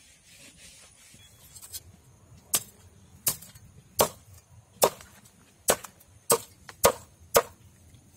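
A large knife striking a whole fish lying on a wooden board: about eight short, sharp strokes a little under a second apart, starting a couple of seconds in.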